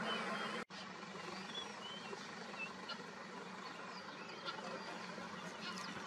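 Scattered short chirps of wild birds over a steady outdoor background hiss, with a brief break in the sound less than a second in.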